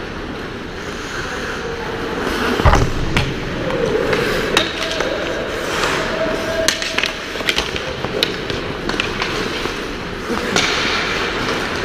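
Ice hockey skates scraping and carving on the ice, with many sharp clacks of sticks and pucks and one heavy thud about three seconds in.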